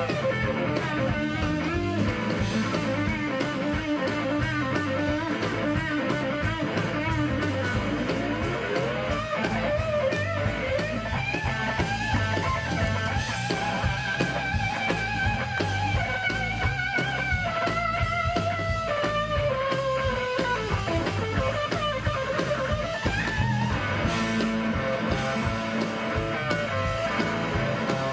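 Live blues electric guitar solo on a Telecaster-style guitar over a drum kit. Midway the solo climbs into long, high bent notes held with vibrato, then comes back down.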